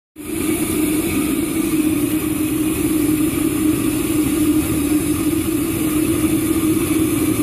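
A homemade valveless pulse jet built from hardware-store parts, running on propane with compressed air fed in from an air compressor. It makes a loud, steady drone with a strong low tone and a hiss of rushing air, starting abruptly.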